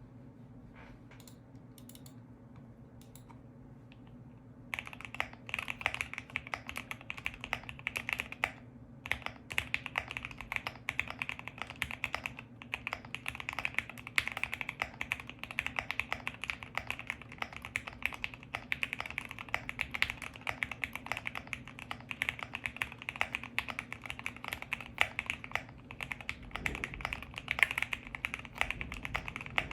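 QK65 mechanical keyboard with Cannonkeys Lavender linear switches being typed on fast: a dense, continuous stream of keystroke clacks starting about five seconds in, after a few faint clicks over a low steady hum.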